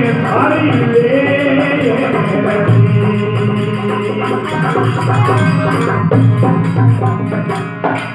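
Devotional Bishnoi bhajan folk music: sustained melodic instrument tones over a quick, steady beat of jingling, rattling percussion, with a brief sung phrase near the start. The music thins out just before the end.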